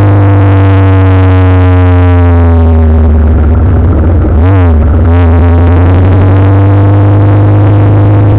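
Motorcycle engine running under a steady loud low rumble, its revs falling slowly as the bike eases off, then a quick dip and recovery about halfway through, like a gear change, before running steadily again.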